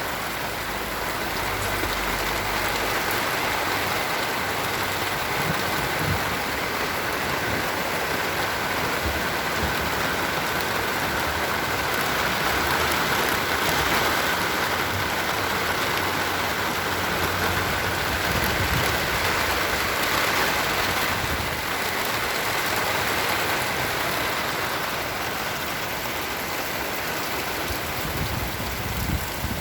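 Rain falling steadily on a basil garden: an even hiss of drops that holds at the same level throughout.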